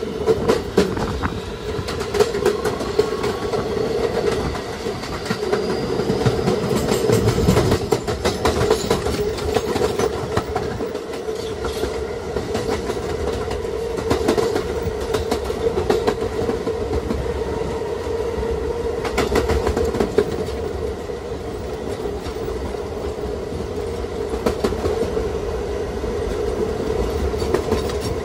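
NYC Subway R211A car with Alstom OptONIX IGBT-VVVF propulsion running at speed: wheels clack over rail joints on top of a steady rumble and drone. A faint rising whine comes in a couple of seconds in and fades by about eight seconds.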